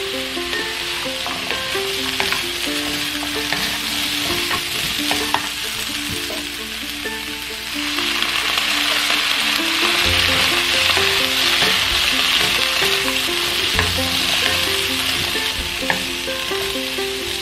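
Green beans and carrots sizzling in an oiled nonstick wok as they are stir-fried with chopsticks and a wooden spatula, with scattered clicks of the utensils against the pan. The sizzle grows louder about eight seconds in, when a tablespoon of water is added to the hot pan.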